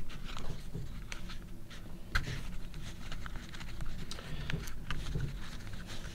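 A deck of trading cards being handled: the edges of the stacked cards rub and slide under the fingers, with small clicks and one sharper click about two seconds in.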